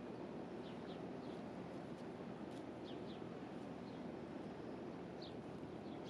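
Steady low rumble of distant city traffic, with small birds giving short high chirps scattered over it, some in quick pairs.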